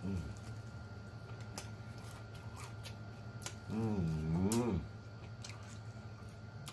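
A man eating a fried chicken wing: faint wet chewing and lip-smacking clicks, and about four seconds in a drawn-out hummed "mmm" of enjoyment lasting about a second, its pitch rising and falling.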